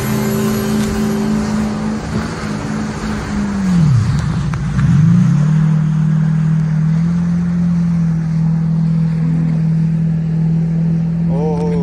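Jet ski engine running steadily. About four seconds in, the revs drop sharply as the throttle is let off, then climb back, and the engine settles at a steady pitch slightly lower than before.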